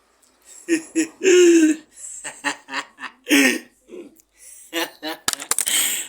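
A person laughing in a string of short bursts, the loudest a little over a second in.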